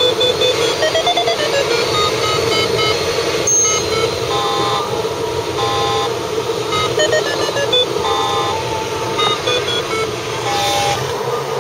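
Steady rush of airflow in a sailplane cockpit in flight, with short electronic beeps at shifting pitches scattered over it.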